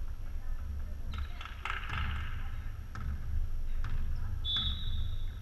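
Volleyball gym between rallies: scattered knocks and footsteps on the hard floor with faint voices echoing in the hall, then near the end one steady referee's whistle blast of about a second, the signal to serve.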